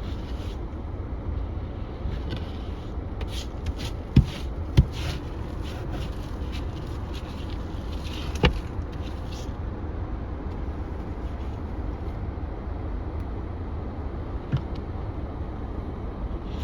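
Steady low rumble of a vehicle in motion, with a few short sharp clicks or knocks: two about four and five seconds in, and another about eight seconds in.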